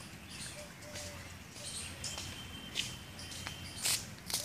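Scuffs and crackles on dry leaves and grit underfoot, with a couple of sharper crackles near the end, over a faint outdoor background. A thin, high steady whistle runs for about two seconds in the middle.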